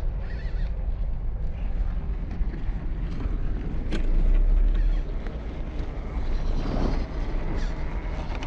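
Wind rumbling on the microphone over the motor and gears of a scale RC off-road truck driving in sand, with a few light clicks and a swell about four seconds in.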